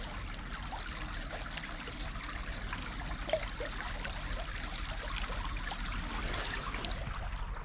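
Shallow stream running over stones, a steady babbling trickle, with small splashes and drips from a hand in the water as a brown trout is released.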